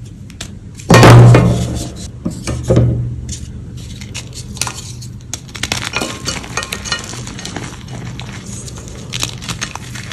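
A moulded bundt-shaped block of gym chalk snapped by hand: a loud crack about a second in and a second crack shortly after. The chunks are then crushed in the fist with a steady run of small, crisp crunches and crackles as they crumble to powder.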